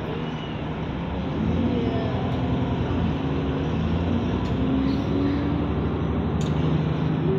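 Bus diesel engine heard from inside the passenger saloon, getting louder about a second in as the bus pulls away and accelerates. The engine note rises, drops back about three seconds in as the gearbox shifts up, then climbs again.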